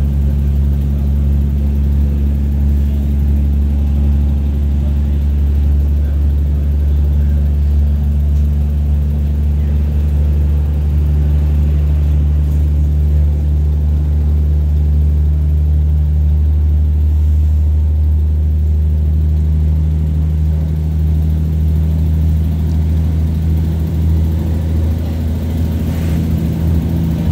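Irish Rail 2800 Class diesel multiple unit heard from inside the carriage while under way: the diesel engine and running gear make a steady low drone. The engine note shifts slightly near the end.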